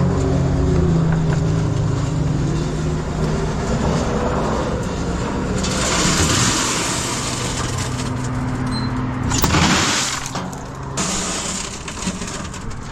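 Car running, with engine hum and road noise; two louder rushes of hiss come about six and about ten seconds in.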